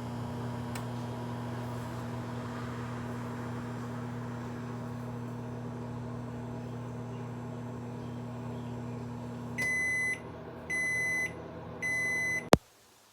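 Microwave oven running with a steady hum for about nine seconds, then finishing with three short high beeps and a sharp click, after which the sound cuts off.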